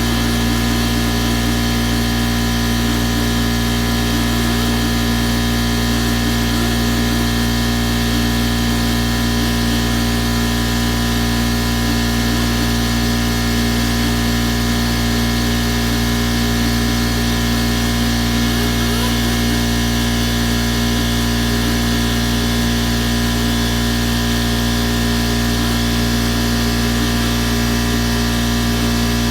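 Air-powered angle grinder with a 3M rubbing wheel running steadily, scrubbing old adhesive tape off the Audi emblem rings.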